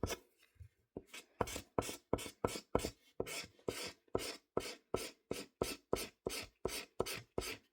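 Felt-tip pen scribbling back and forth on paper in quick, even strokes, about four a second.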